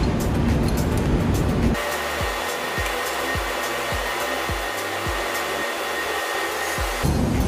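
Steady rushing workshop machinery noise under background music, with a soft low beat about twice a second through the middle.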